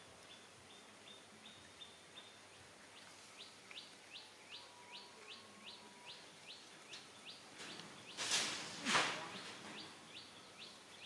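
A bird chirping over and over, short high falling notes about three a second. Two loud noisy rustling bursts come close together about eight and nine seconds in.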